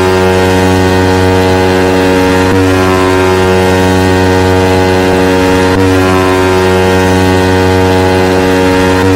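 Loud, steady electronic bass tone with a buzzy stack of overtones, held at one pitch, of the kind played in car sound-system battle tracks; it dips briefly about every three seconds.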